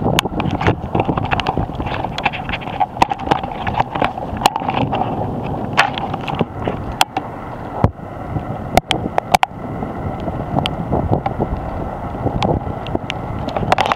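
Strong wind buffeting the camera microphone, a steady rushing noise, with irregular sharp clicks and pops scattered through it.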